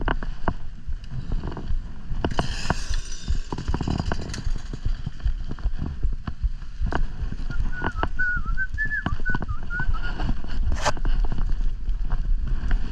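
Low wind rumble on the microphone with scattered knocks and handling noise from outdoor tree-clearing work, and no saw running. About seven seconds in, a short warbling whistle lasts two or three seconds.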